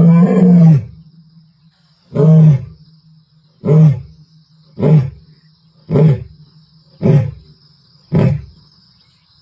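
Lioness roaring: one long, loud roar at the start, then six shorter calls spaced about a second apart, each briefer than the last, the usual tail of a lion's roaring bout.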